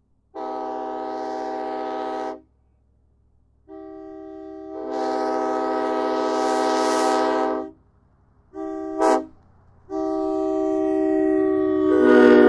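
Multi-chime air train horn blowing a long, long, short, long pattern, the standard grade-crossing signal. The second blast starts softer and opens up to full volume about a second in. The last blast grows louder near the end.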